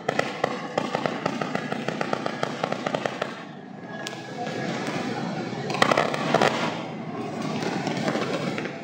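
Fireworks display: rapid crackling from bursting stars, a single sharp bang about four seconds in, then another loud flurry of crackles around six seconds.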